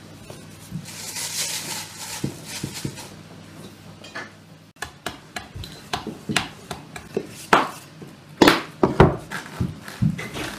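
Soft rustling of dough being handled, then a wooden rolling pin rolling out dough on a wooden board, with a run of sharp knocks and clatters of the pin against the board, loudest near the end.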